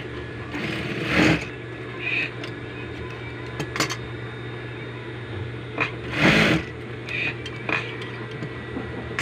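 Juki industrial sewing machine's motor humming steadily while idling. Two short, louder rushes of noise come about a second in and again around six seconds, with a few light clicks, as the cloth is handled at the machine.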